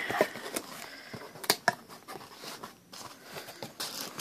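A shipping box and its packing being handled: light rustling of paper and packing with scattered small clicks, the sharpest about a second and a half in.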